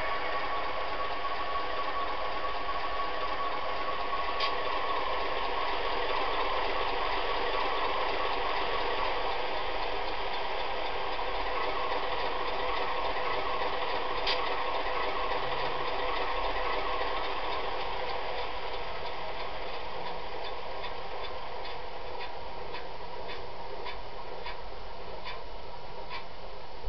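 Tsunami sound decoder in a Walthers U30B model diesel locomotive playing a four-stroke diesel engine running steadily through a high-bass speaker. A steady tone fades out about a third of the way in, and a light regular ticking comes in near the end.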